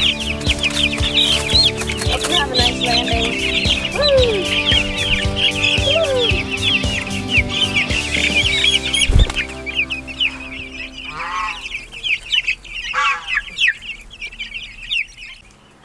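A crowd of young chicks peeping, many high chirps overlapping one another; the peeping thins out after about ten seconds. A single low thump about nine seconds in.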